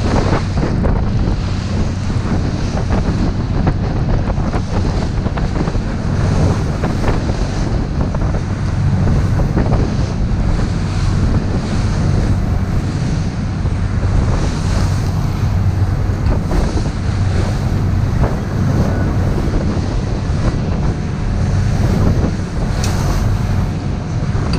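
Wind buffeting the microphone and water rushing and splashing along the hull of a lobster boat running through rough seas, over a steady low drone from the boat.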